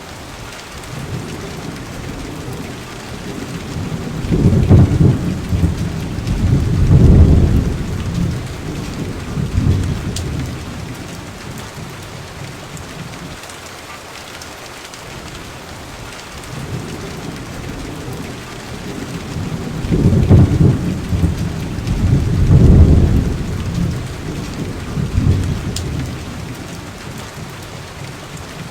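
Steady rain with two long rolls of thunder, the first starting about four seconds in and the second about twenty seconds in, each rumbling low through several swells before fading back under the rain.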